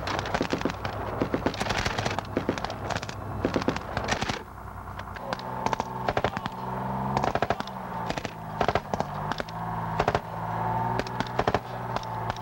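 Small-arms fire during an infantry assault exercise: rifles and machine guns firing many rapid, irregular shots, with a brief lull about four seconds in. A steady low hum runs beneath the shots after the lull.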